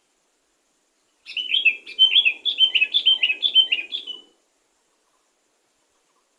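Sooty-headed bulbul singing a quick run of sharp chirping notes for about three seconds, starting just over a second in.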